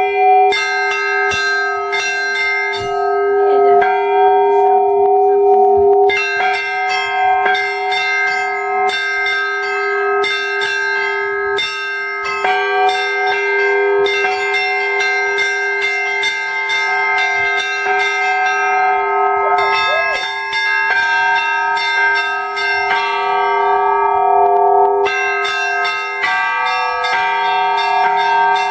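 Russian Orthodox church bells rung in a peal (zvon): smaller bells struck in quick succession over the steady ringing tones of the larger bells.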